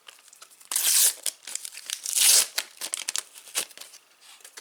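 Paper sticker packet and stickers being handled, with two loud tearing, crinkling rustles, one about a second in and another just after two seconds, and light rustles and clicks between them.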